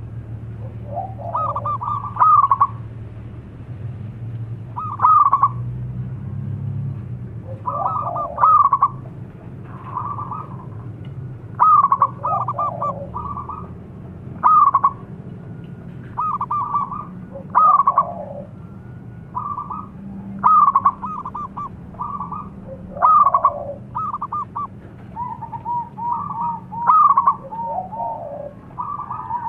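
Zebra dove (perkutut) cooing in short phrases: a quick cluster of higher notes that drops into lower, rolling coos. The phrase repeats about every two to three seconds.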